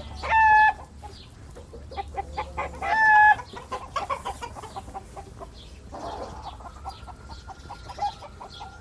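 Chickens clucking: two loud drawn-out hen calls, one about half a second in and one about 3 s in, with soft short clucks throughout.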